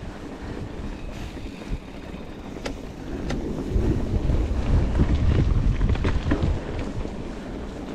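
Wind buffeting the camera microphone over the rumble of mountain bike tyres rolling on a dirt trail, getting louder about halfway through. A couple of sharp clicks or rattles from the bike come just before.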